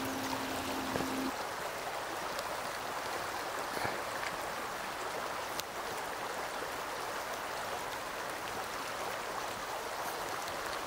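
Shallow, fast-flowing stream running over rocks and ice, a steady rushing and babbling. A low steady tone is held over it for the first second or so, then stops.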